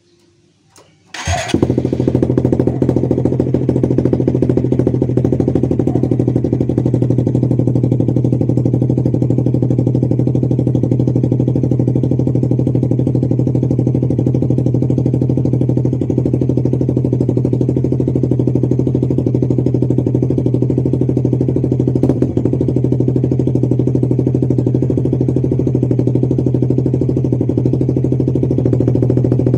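Suzuki GSX-R150's single-cylinder engine starting about a second in and then idling steadily through a short-necked, underbelly-mounted SC Project-style aftermarket racing exhaust, loud and noisy.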